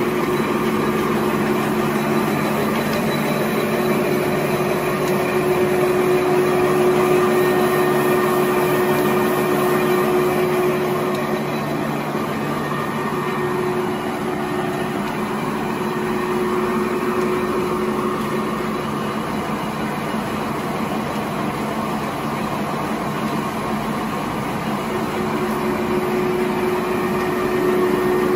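Napkin tissue production line running: a steady mechanical whir and hum with a low held tone. The tone fades for a while in the middle and returns near the end.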